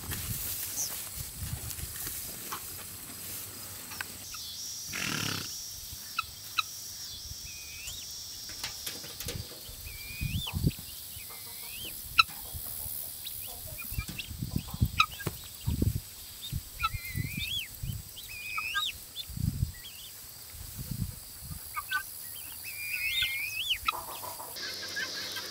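Farm poultry calling: many short, high, warbling calls, coming thick from about eight seconds in, over scattered low thuds.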